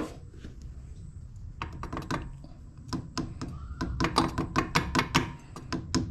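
Short metallic taps from a hammer on a socket used as a seal driver, knocking an oil seal into a motorcycle clutch slave cylinder housing. A few scattered taps come first, then a quick run of taps about four seconds in.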